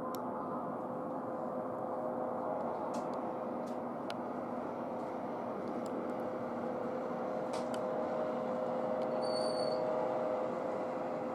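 Steady airport background noise from distant jet engines, with a faint steady whine.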